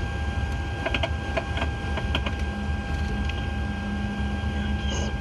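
Boeing 777 flight deck while taxiing: the steady low rumble of the airliner rolling on its engines, with a steady hum, and a quick run of sharp switch clicks about a second to two and a half seconds in as the after-landing switches are set.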